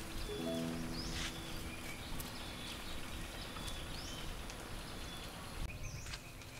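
Rural outdoor ambience: birds chirping with short high calls every second or so, and a brief low-pitched animal call near the start.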